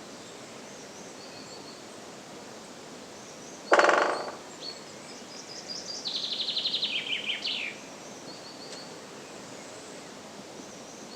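Great spotted woodpecker drumming: one short, fast roll of beak strikes on wood about four seconds in, the loudest sound. A little later a songbird sings a quick run of notes that falls in pitch, and faint short high chirps come now and then.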